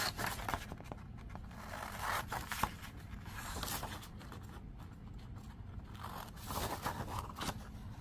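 Scissors cutting through printed paper in short runs of snips, with quieter gaps between the runs.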